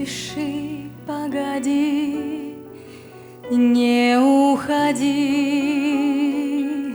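A slow, tender song: a singer holds long notes with a wavering vibrato over a soft, steady accompaniment.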